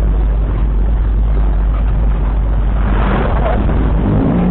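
Steady road-vehicle noise on the move: a low rumble with a rushing haze over it, like engine and wind while riding in traffic.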